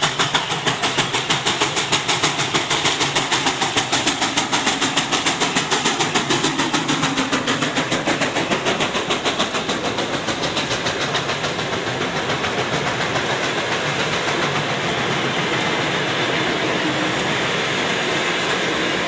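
Soviet Su-class steam locomotive working hard at speed with a passenger train, its exhaust beating rapidly at about four to five chuffs a second. The beats fade about ten seconds in as the engine passes, giving way to the steady running noise and wheel clatter of the passenger coaches rolling by.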